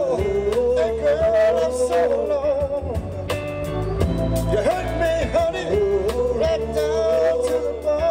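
Oldies-style soul song: men singing long held notes over a band with a steady beat.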